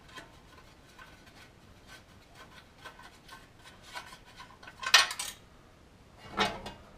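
Faint irregular metallic ticks and scrapes of a 10 mm wrench working the small bolts of a Jeep's front brake dust shield, then a sharp metallic clatter about five seconds in and another knock just after six seconds, as a loosened bolt drops away.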